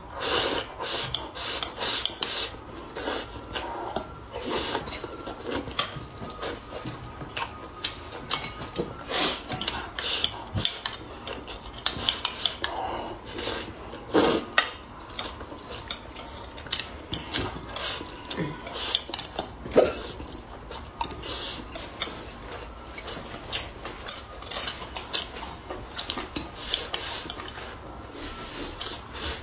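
Close-miked eating sounds: chopsticks clicking and scraping against a ceramic bowl as rice is scooped up, with chewing and mouth sounds between them. They come as many irregular sharp clicks.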